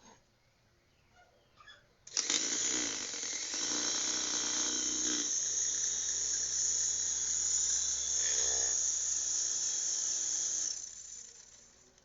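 Small electric motor of a homemade fan switching on suddenly and running with a steady high whir, then switched off and spinning down near the end.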